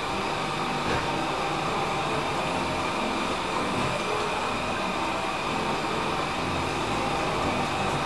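Gadnic CleanMate robot vacuum running in spot-cleaning mode over crumbs: a steady machine whir with a faint steady high whine.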